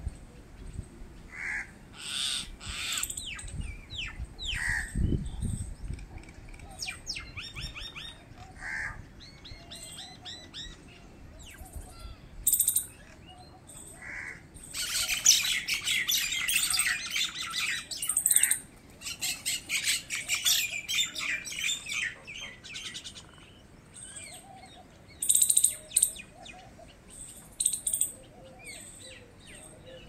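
Common mynas calling: a mix of short whistled notes and harsh, scratchy chatter, with a long run of rapid harsh chattering about halfway through and a few loud sharp calls near the end.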